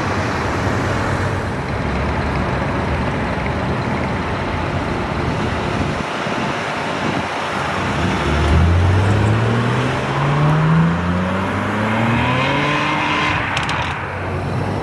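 Sports car engine accelerating hard, its note rising steadily through one gear, dropping at a shift and climbing again through the next, over a background of road-traffic noise.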